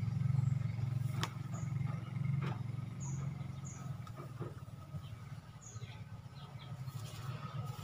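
A steady low hum with faint bird chirps scattered over it, and a couple of light clicks and scrapes as charred rice husk is scooped from a basin.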